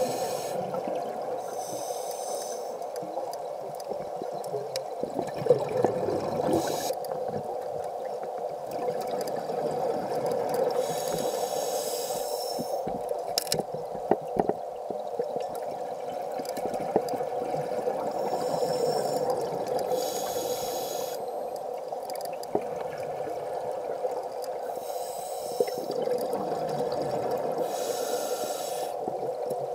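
Underwater sound through a camera housing: a steady muffled drone, with a scuba diver's regulator exhaling bubbles in hissing, gurgling bursts of a second or two, about six times, a few seconds apart. A few faint clicks sound between them.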